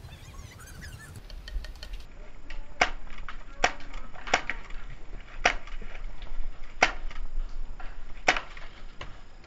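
Airsoft pistol firing single shots: about six sharp cracks spaced roughly a second apart, with fainter clicks between them.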